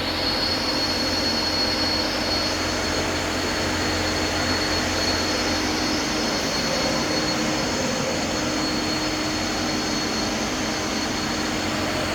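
Kia EV9's cooling fan going nuts while the car is switched off and unplugged: a steady rushing whoosh with a thin, steady high whine, for a reason the owner doesn't know.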